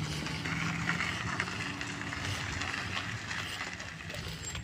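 Maruti Suzuki Alto hatchback's small three-cylinder petrol engine driving off along a rough road, a steady hum with tyre noise, fading a little near the end as the car moves away.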